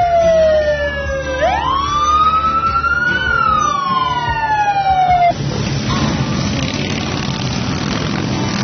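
Siren wailing: a tone that slides down, sweeps sharply up, climbs slowly and then falls away. About five seconds in it cuts off abruptly and gives way to a dense, steady rushing noise from the mass of motorcycles.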